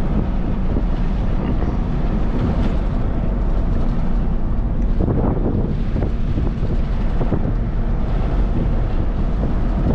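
Vehicle driving along a firm dirt road, heard from inside the cabin: a steady drone of engine and tyre rumble.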